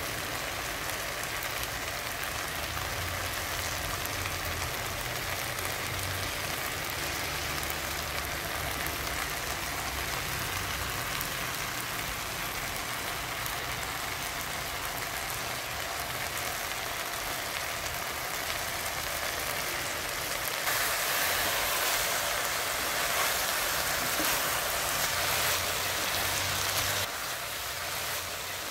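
Chicken pieces sizzling as they sear in an enamelled cast-iron pot, a steady sizzle that grows louder for several seconds about two-thirds of the way in.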